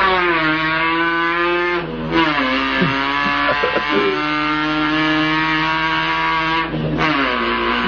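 A person imitating a car engine with the mouth, revving up through the gears. The engine-like drone climbs in pitch and drops at each gear change, about two seconds in and again near the end.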